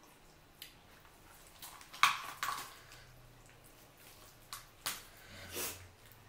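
A whole boiled chicken pulled apart by hand: wet tearing of skin and meat with scattered sharp snaps of joints and bone. The sharpest snap comes about two seconds in.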